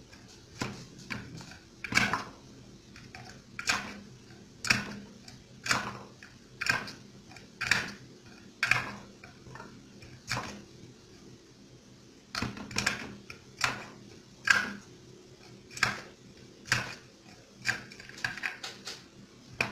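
A hand-operated three-blade plastic olive slitter being worked: the plunger is pressed down again and again, forcing olives through the razor blades. Each press gives a sharp click or knock, about one a second, some in quick pairs.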